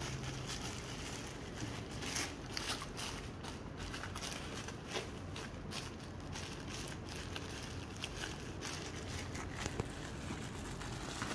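Plastic bubble wrap crinkling and rustling as hands fold and press it around a boxed toy, with irregular small crackles.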